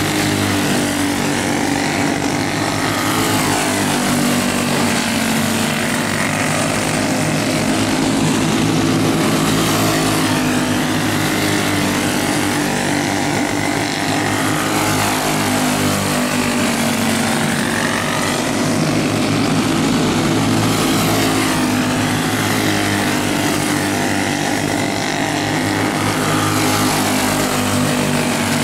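Several dirt-track racing go-kart engines running together around the oval, a steady drone of small engines whose pitch rises and falls as the karts pass.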